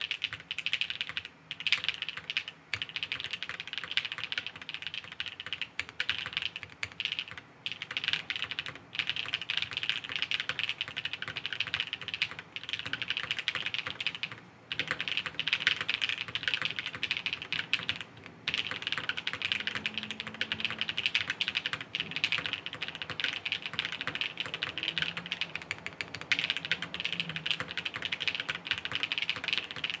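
Fast continuous typing on a plateless W1-AT mechanical keyboard with lubed Gateron Cream Soda switches and GMK keycaps. It is a dense stream of keystrokes broken by a few brief pauses.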